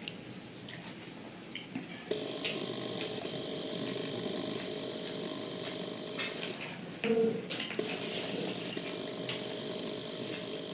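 Close-up eating and handling sounds: a plastic dip cup's lid peeled back, fingers licked and fried chicken wings handled, heard as scattered small clicks and smacks over a steady background hum. There is one louder short sound about seven seconds in.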